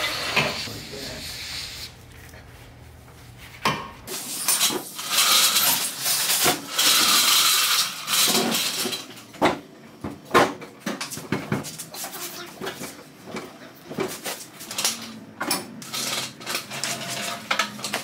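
Repeated metal clanks, knocks and rattles of tools and steel parts as an LS V8 and transmission are worked into the engine bay and the mount studs are coaxed into the subframe.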